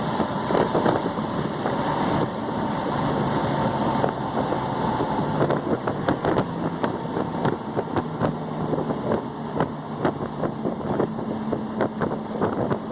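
Chevrolet S10 pickup's engine running steadily while driving at speed, with wind noise and frequent short knocks and rattles over the whole stretch.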